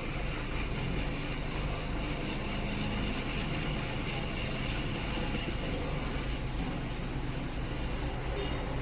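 2012 Ford Fusion's four-cylinder engine running steadily with a low, even hum. The scanner shows it is misfiring on cylinders 1 and 2.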